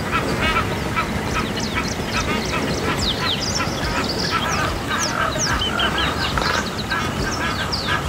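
A chorus of many birds calling at once: short calls repeated over and over by several birds overlapping, with quick falling whistles and chirps above them.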